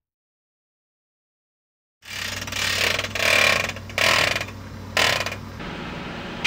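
Heavy machinery starts up about two seconds in with a steady engine hum, overlaid by four harsh mechanical bursts of noise roughly a second apart.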